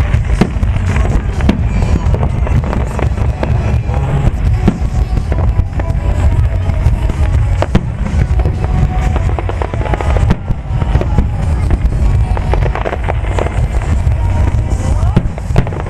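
Aerial fireworks shells bursting in quick succession, a dense run of sharp bangs and crackles over a steady low rumble, with music playing underneath.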